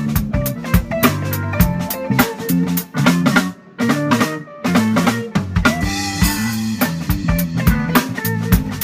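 A small band playing live, with a Pearl drum kit and a digital piano. The drums keep a steady beat under the keyboard chords. The band stops briefly about three and a half seconds in, comes back in, and a cymbal crash rings around six seconds.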